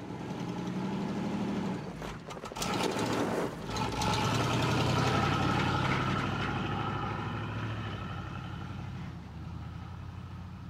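Car engine running with a rougher, noisier stretch about two to three seconds in, then a steady run that slowly fades away.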